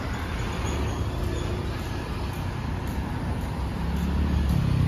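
Road traffic: cars and motor scooters passing on a road, a steady wash of engine and tyre noise, with a vehicle's engine hum growing louder near the end as it passes close.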